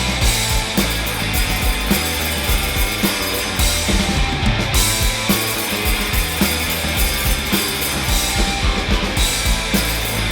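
Four-piece rock band playing an instrumental passage, the drum kit keeping a steady beat under bass and guitar.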